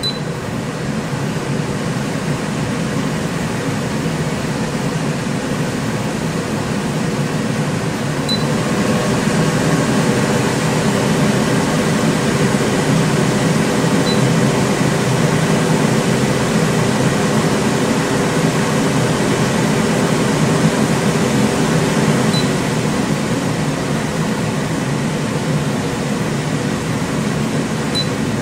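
Silverline Comet island cooker hood's extractor fan running with a steady rush of air and a faint hum. It steps up to a louder speed about eight seconds in and drops back about twenty-two seconds in. A short high beep sounds now and then, at each speed change.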